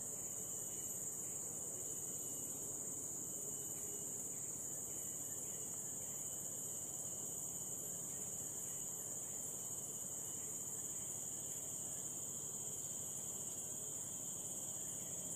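Insect chorus, crickets or cicadas, holding one continuous high-pitched shrill drone without a break.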